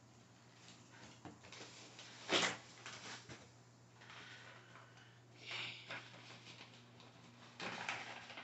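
Intermittent rustling as a gift bag and its contents are handled and unpacked, with a louder rustle about two seconds in and more near the end.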